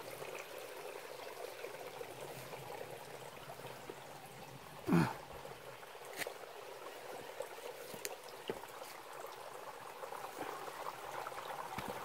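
Small rocky mountain stream trickling and flowing over stones, a steady gentle water sound. About five seconds in, a brief louder sound with a falling pitch cuts across it.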